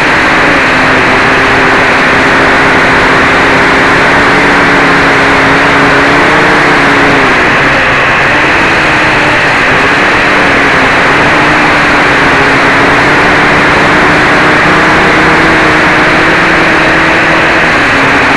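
Quadcopter's four DT750 brushless motors spinning 11x4.7 propellers, heard up close from a camera on the frame: a loud, steady buzzing drone. Its pitch steps up and down a little several times as the throttle changes.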